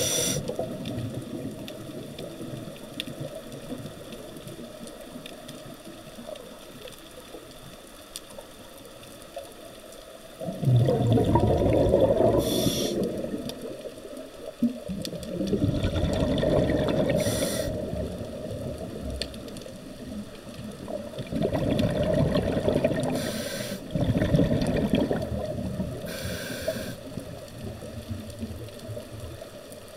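Scuba diver breathing through a regulator underwater: short hissing inhalations alternating with longer bubbling rumbles of exhaled air, several breaths in a row.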